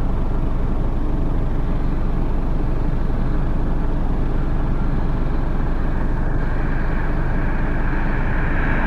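John Deere 6820 tractor's six-cylinder diesel running steadily under load while pulling a four-furrow reversible plough. A rushing hiss builds over the last couple of seconds.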